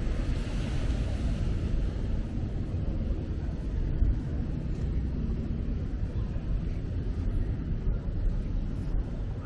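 Steady wind rumble on the microphone, a low even roar with a fainter hiss above it, as the recorder moves along.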